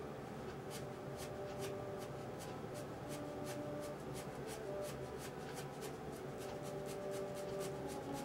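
Graphite pencil scratching on drawing paper in short repeated shading strokes, about three a second.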